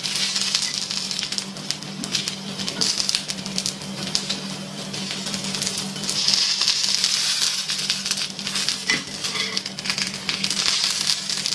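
Dosa sizzling on a hot cast-iron tawa, with a steel spatula scraping and tapping against the pan as the dosa is folded and pressed. The sizzle swells for a couple of seconds around the middle. Soft background music plays underneath.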